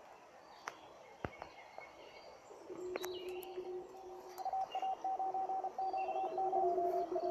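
Morse code tone from a home-made 1 W transceiver, keyed on and off in short and long beeps, starting about three seconds in and getting louder. Before it there are faint bird chirps and a couple of light clicks.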